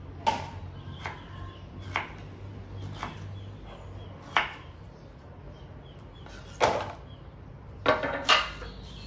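A knife chopping on a wooden cutting board: single sharp knocks at uneven intervals, about one a second, with two in quick succession near the end.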